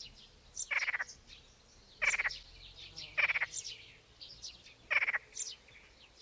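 A frog croaking: four short, rattling calls at an uneven spacing of a second or more, with faint high bird chirps between them.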